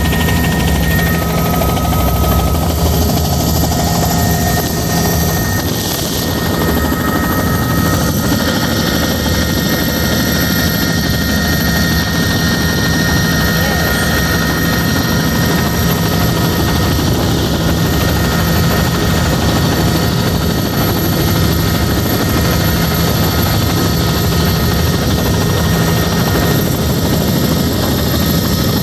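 Helicopter in level flight, heard from inside its cabin: a steady, loud drone of engine and rotor with a few constant whining tones, unchanging throughout.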